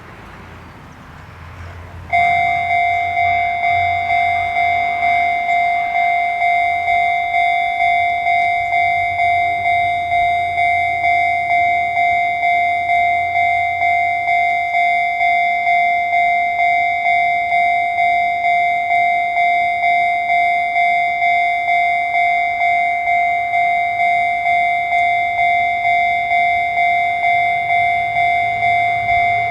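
Japanese railway level-crossing warning bell starting about two seconds in and ringing on in a steady, even ding-ding, roughly two strikes a second, signalling an approaching train. A low rumble comes before it.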